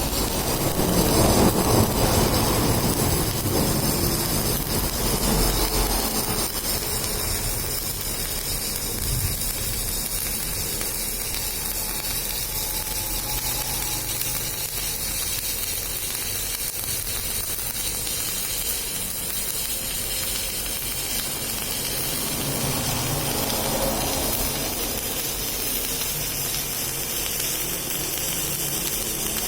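Welding arc sizzling and hissing steadily, a little louder in the first few seconds.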